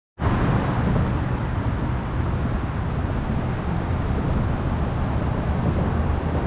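Steady rush of stream water pouring into a small pool, a constant noise with a low rumble underneath. It cuts in after a split-second dropout at the very start.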